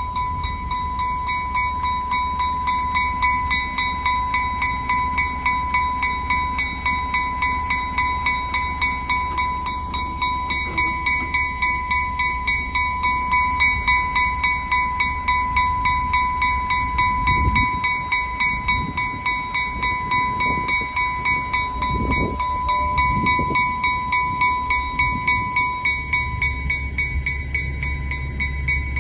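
Narrow-gauge heritage locomotive's bell ringing steadily in an even, rapid rhythm over the low rumble of the train, with a few low thumps about two-thirds of the way through.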